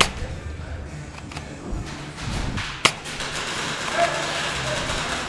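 Single sharp cracks of airsoft fire: one at the start, one just under three seconds in and one near the end, over steady background noise with faint distant voices.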